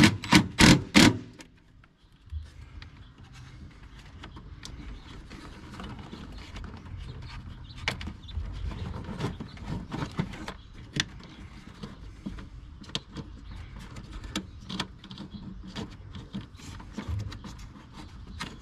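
Scattered small clicks and plastic rattles of hands working wires and connectors into a truck's under-hood fuse box, over a low rumble. A quick series of sharp clacks from the hand driver comes in the first second.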